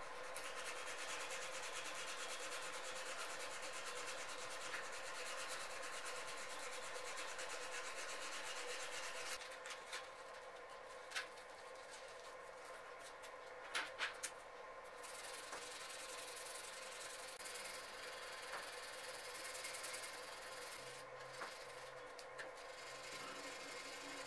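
Aluminium die cavity being hand-sanded with abrasive paper, rubbed back and forth along the half-round groove to polish out tool marks. A few light clicks come in around the middle.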